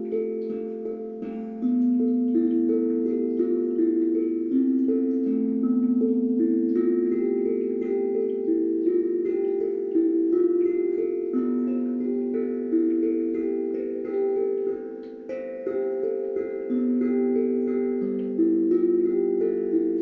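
Calm instrumental music: slow melodic notes that ring on and overlap one another, changing every second or two.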